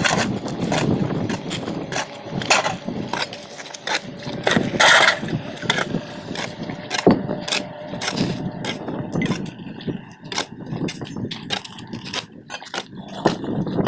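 Cement and sand being mixed: gritty scraping with many irregular clicks and knocks, and a louder scrape about five seconds in.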